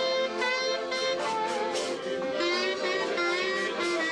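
Button accordion playing a melody in sustained reedy chords, accompanied by an acoustic guitar on a steady beat of about four strokes a second.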